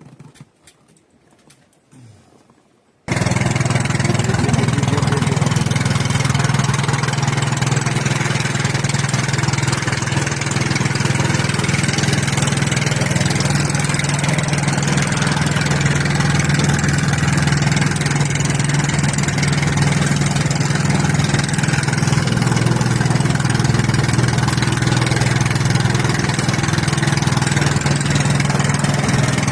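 An engine running steadily at a constant speed, coming in suddenly about three seconds in after a few faint clicks.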